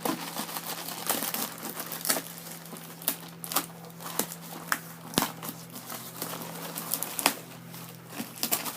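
Packaging being handled while a box is opened: crinkling and rustling with many scattered clicks and small knocks, and one sharp click about five seconds in.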